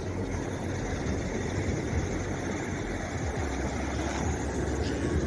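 Ocean surf breaking and washing up a sandy beach, with wind on the microphone adding a steady low rumble.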